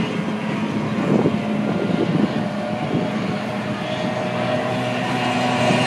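Outboard engines of SST 45 tunnel-hull race boats running flat out, a steady high-revving drone with several engine tones layered together.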